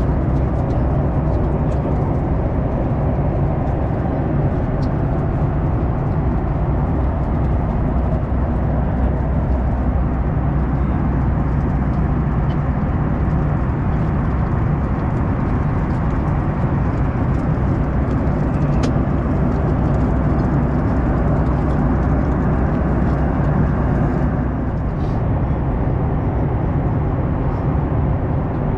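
Steady cabin noise of a Boeing 737 MAX 9 at cruise: the even rush of airflow and the CFM LEAP-1B engines, heard inside the cabin. A few faint light clicks.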